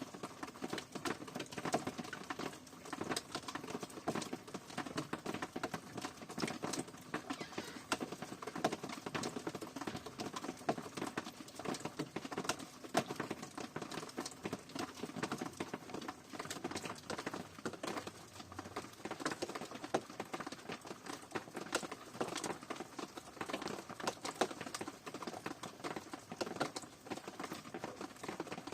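Steady rain, many irregular drops pattering closely together at an even level.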